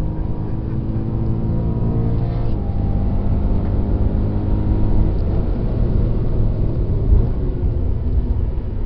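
BMW M3 engine accelerating hard under full throttle, its pitch climbing and then dropping on upshifts about two and a half seconds in and again about five seconds in, with road noise underneath.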